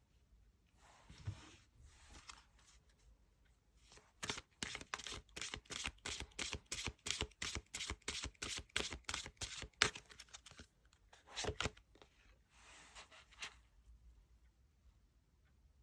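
Tarot cards shuffled by hand: a quick run of card slaps, about four a second, lasting about six seconds, followed by a couple of knocks and a soft sliding swish.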